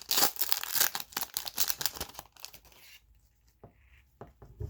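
A foil trading card pack being torn open and crinkled, with dense crackling for about three seconds, then a few light clicks as the cards are handled.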